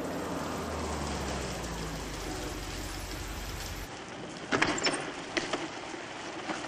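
Steady rain hiss with a car engine's low hum as a taxi pulls over; the hum drops away about four seconds in. The rain goes on, and two sharp clunks come close together as the cab's rear door is unlatched and opened.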